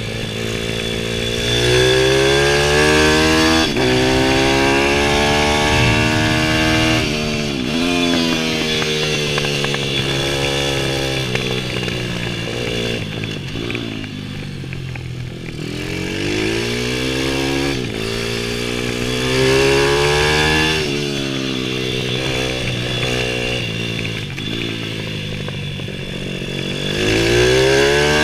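Stomp supermoto pit bike engine revving hard as it accelerates, its pitch climbing in repeated rising sweeps, with quick drops at gear changes and lower, softer stretches when the throttle comes off for corners.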